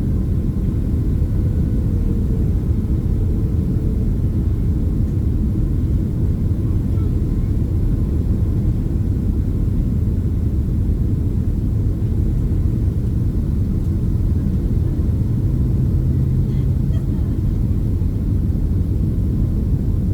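Steady low rumble of airliner cabin noise inside a Boeing 767-300ER, heard from a main-cabin seat behind the wing.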